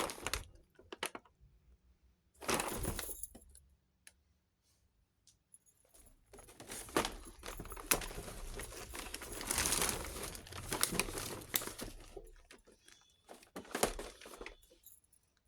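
Miniature toy kitchenware being handled and unpacked: small clinks and taps of the pieces, with crinkling of packaging, in several short spells with quiet gaps between.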